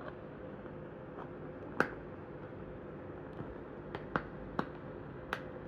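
A screwdriver being tried on the small screws that hold a toy car in its plastic display packaging: about five sharp clicks of metal tip on screw and plastic, the loudest about two seconds in and three close together near four seconds.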